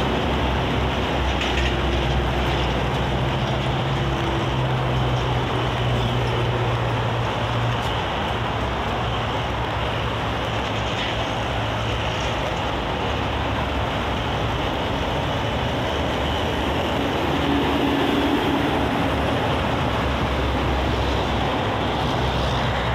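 Steady expressway traffic noise: cars, vans and trucks passing at speed, with a low engine drone from heavy trucks.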